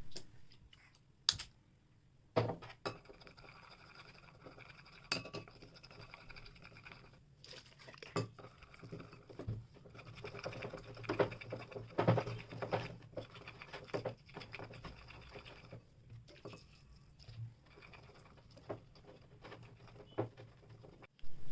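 Slime being mixed by hand in a bowl: uneven stirring and scraping with scattered sharp clicks and taps against the container, busiest around the middle.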